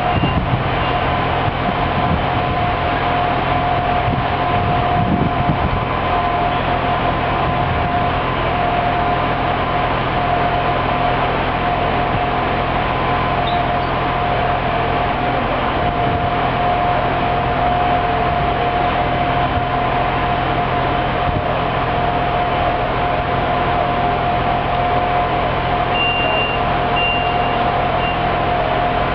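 A diesel railbus idling steadily: a constant engine drone with a steady whine over it.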